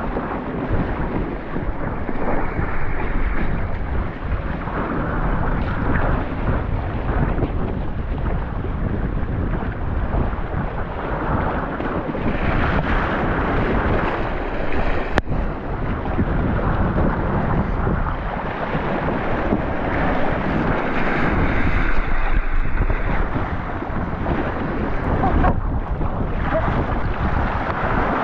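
Strong wind buffeting the microphone over the rush and splash of choppy water against the hulls of a Hobie Tandem Island sail-kayak sailing fast, with spray breaking over the bow. One sharp click about halfway through.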